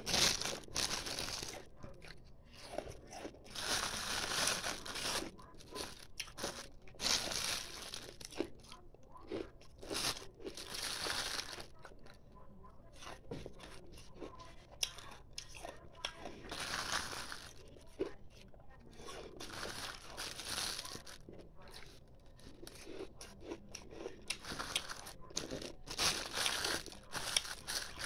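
Ice being crunched between the teeth close to the microphone: bursts of crisp crunching one after another, with wet chewing between bites.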